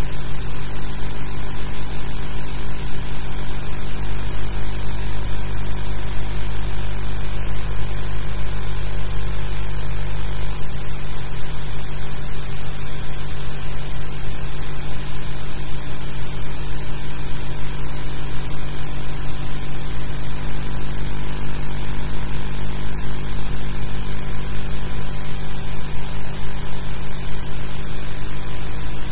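Steady hiss with a low electrical hum, unchanging throughout: the background noise of an old archival film soundtrack, with no speech or music on it.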